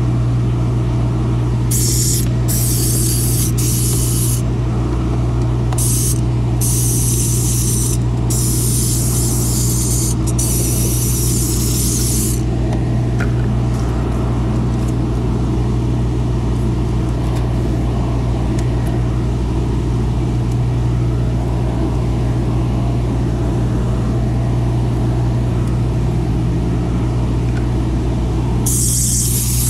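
Steam cleaner's nozzle hissing in short spurts of steam, several in quick succession over the first dozen seconds, then stopping, and starting again near the end. Under it runs a steady low machine hum.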